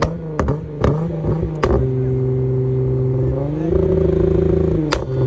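Volkswagen Jetta 3 VR6 engine revving, with several sharp exhaust pops in the first couple of seconds as it shoots blue flames. It then holds a steady raised rev, steps up about two-thirds of the way in, and drops back with another crack near the end.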